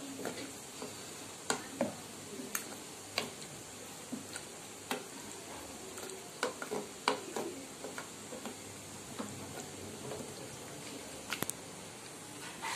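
Wooden spoon stirring a thick curry in an open pressure cooker pot, knocking and scraping irregularly against the pot's metal sides over a steady sizzle from the pot.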